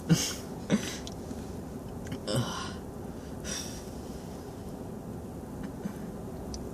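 A few short breathy sounds from a person, near the start and again about two and a half seconds in, then steady quiet room tone.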